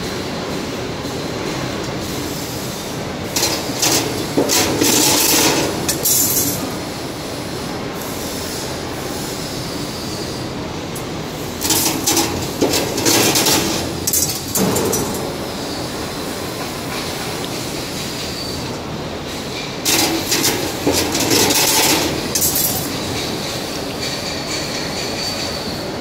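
XLC 2D CNC wire bending machine working through its feed-and-bend cycles: three bursts of mechanical clatter, each about three seconds long and roughly eight seconds apart, over a steady workshop hum.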